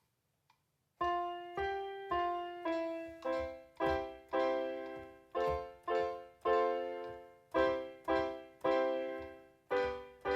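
GarageBand piano sound on an iPad, played live from a Vangoa VGD611 keyboard over Bluetooth MIDI. After about a second of silence, a simple run of chords and notes is played, roughly two a second, each struck and left to decay.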